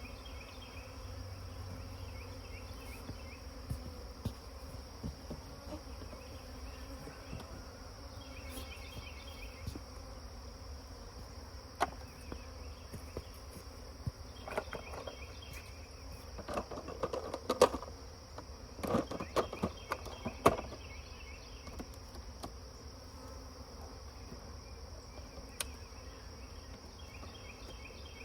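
A honeybee swarm buzzing steadily, with a high, even insect drone over it. From about halfway through there is a cluster of sharp knocks and clatter, the loudest sounds, as hive parts are handled.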